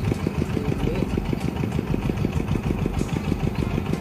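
A small engine running steadily at a fast, even chug.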